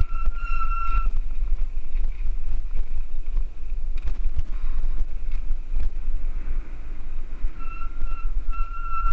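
Wind buffeting the microphone of a helmet camera on a mountain bike descending a dirt trail, a loud, steady low rumble mixed with tyre and trail noise. Near the start and again near the end a high, pulsing whistle-like squeal rides over it.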